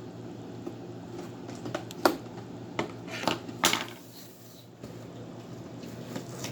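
Hard plastic clicking and knocking as a child handles and tries to pry open a plastic Pooparoos toy toilet; a few sharp clicks come about two to four seconds in.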